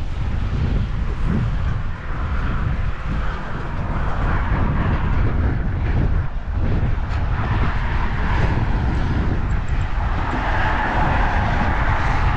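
Wind buffeting the microphone with road traffic on the bridge, a steady rushing rumble, and a passing vehicle swelling louder in the second half.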